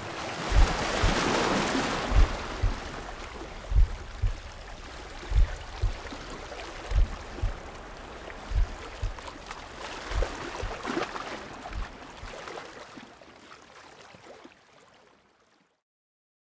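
Sea water washing and gurgling at the surface, loudest in the first couple of seconds, over a slow pattern of low double thumps that repeats about every second and a half. Everything fades out to silence near the end.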